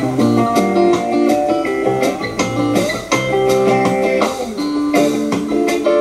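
Guitar-led music playing back from a cassette on a Pioneer CT-1370WR dual cassette deck, with held notes over a steady strummed rhythm.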